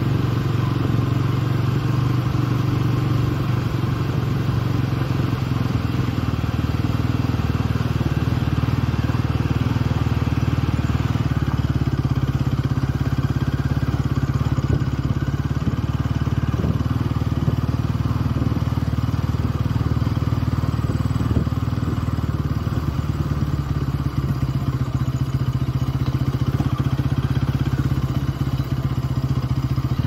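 Motorcycle engine running steadily while riding, a constant low drone.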